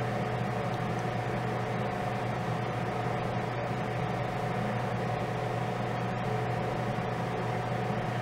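Steady machine hum with a constant thin whine above it, unchanging throughout.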